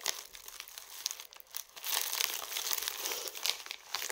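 Plastic bubble mailer crinkling and rustling as it is pulled open by hand. There are a few scattered crackles at first, and the crinkling becomes louder and more continuous from about two seconds in.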